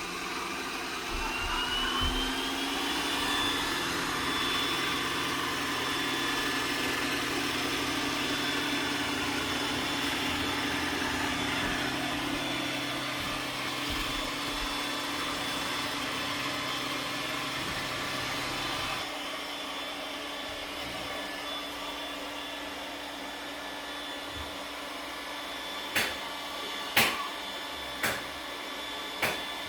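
iRobot Roomba s9+ robot vacuum running, with a whine that rises as the motor spins up in the first few seconds and then holds steady. About two-thirds of the way through the sound drops and thins, and near the end there are four sharp knocks.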